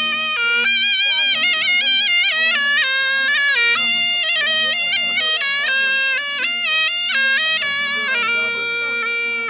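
Surnai, the Rajasthani double-reed folk oboe, playing a fast melody full of quick trills and ornaments, then settling on a long held note about eight seconds in, over a steady low drone.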